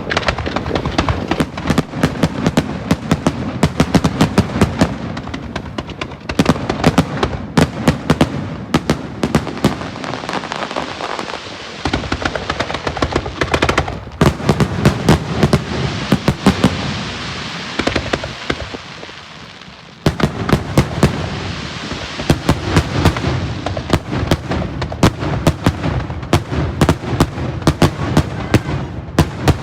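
Fireworks shells bursting in rapid succession, many sharp bangs and crackles a second. The rapid fire breaks off abruptly a few times.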